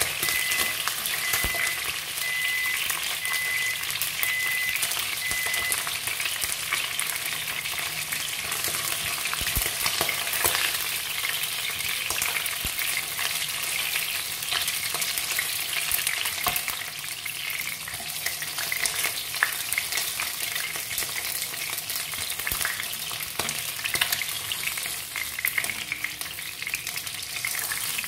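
Pieces of red snapper head sizzling steadily in hot oil in a wok, with occasional light clicks as wooden chopsticks lift the fried pieces out of the pan.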